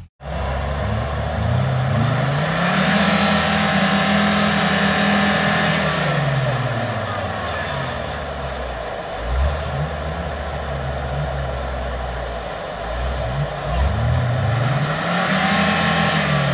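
4x4 engines revving hard under load while a bogged UAZ-469 is pulled out of mud on a tow strap. The revs climb and hold for a few seconds, drop away, surge briefly, then climb again near the end.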